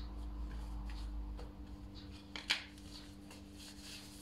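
Hands rubbing and rolling soft yeast dough on a floured counter over plastic film: faint scratchy rustling, with one sharp click about two and a half seconds in. A steady low hum runs underneath.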